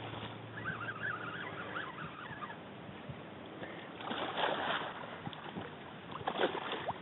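A hooked snook thrashing and splashing at the water's surface while being fought to the bank, with a burst of splashing about four seconds in and a few sharper splashes near the end.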